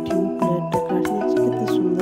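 Background music: a melody of struck notes over sustained chords.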